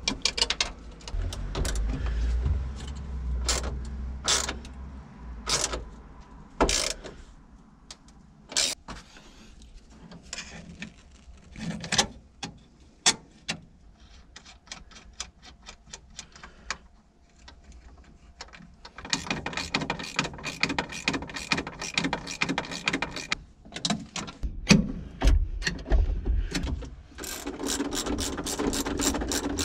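Hand tools working on a car engine: scattered metal clinks and knocks, then runs of quick, evenly spaced clicking from a socket ratchet in the second half.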